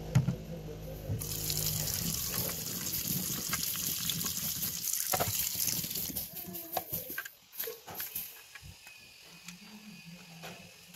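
Tap water running into a ceramic bathroom sink and splashing over a plastic toy water pistol as it is filled. It starts about a second in and stops about seven seconds in, and a sharp knock sounds at the very start.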